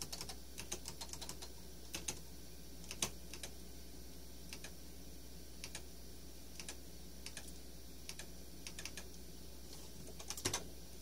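Keys on the IBM PS/2 P70's keyboard clicking in scattered, irregular presses, over a faint steady low hum.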